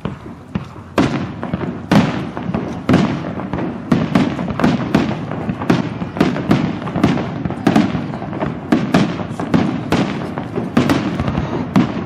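Aerial fireworks bursting in a rapid barrage, several bangs a second, louder from about a second in.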